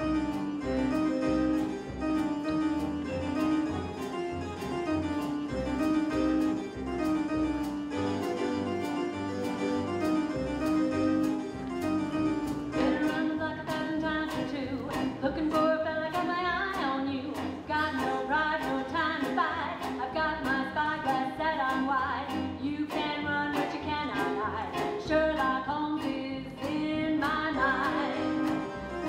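Live pit band playing a show tune with a steady beat. Singing comes in about halfway through.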